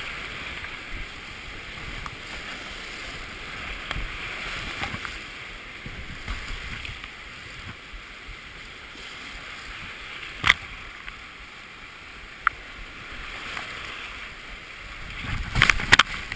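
Rushing whitewater of a mountain creek heard from a kayak's deck, with two sharp knocks about ten and twelve seconds in and a burst of loud splashing near the end as water washes over the deck.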